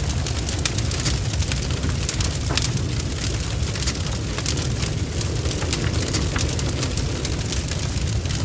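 Large barn fire burning, recorded inside the blaze: a steady low roar with dense, irregular crackles and spitting throughout.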